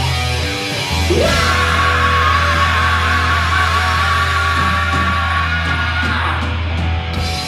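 Heavy metal band playing live, with the singer holding one long, high note over sustained guitar and bass. The voice slides up into the note about a second in, holds it for about five seconds, and drops off near the end.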